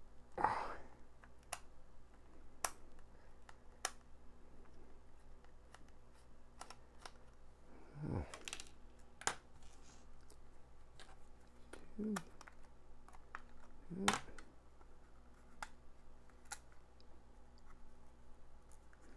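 Scattered small clicks and taps of a small screwdriver and plastic flashlight housing parts being handled on a work mat, with a few louder knocks about a second in, around the middle and about two-thirds through.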